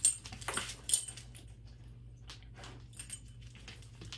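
Dog's metal collar tags jingling as the dog moves, with two sharp clinks about a second apart near the start and a few faint ticks after.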